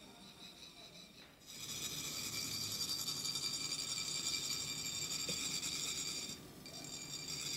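Metal chak-pur sand funnels being rasped, making a steady high-pitched buzz. It starts about a second and a half in, stops briefly near the end, then carries on.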